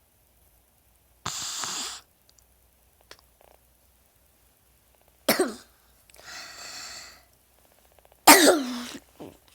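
Coughing fit. A harsh, rasping breath comes about a second in, then a sharp cough falling in pitch about five seconds in. A longer rasping breath follows, then a second, louder cough near the end.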